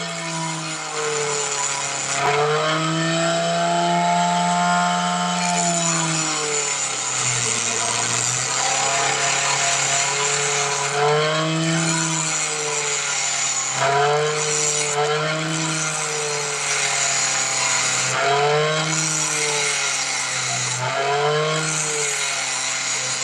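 Homemade bench grinder driven by a blender motor, grinding a steel rod against its abrasive wheel. The motor's hum sags and recovers in pitch several times as the rod is pressed in and eased off, over a steady gritty hiss from the grinding.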